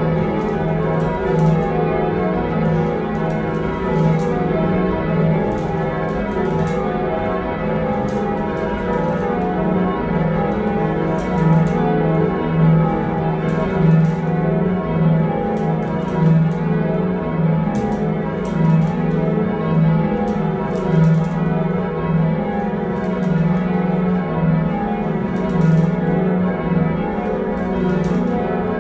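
A heavy ring of six church bells, cast by John Taylor & Co in 1925 with a tenor of about 19¾ hundredweight in E-flat, being change rung: an unbroken, even run of bell strikes, heard from the ringing chamber below the bells.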